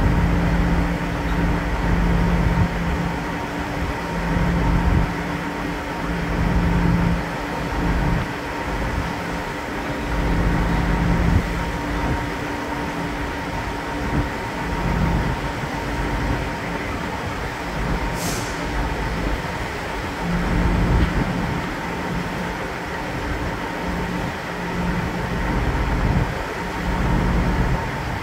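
The MV Saaremaa 1 ferry's engines and machinery running with a steady hum over a deep rumble, with a stiff wind buffeting the microphone in gusts. A brief hiss about two-thirds of the way through.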